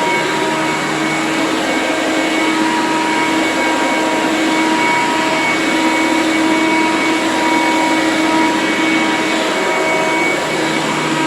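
Eureka TheBoss 10-amp soft-bag upright vacuum cleaner running steadily: a constant motor roar with a steady high whine.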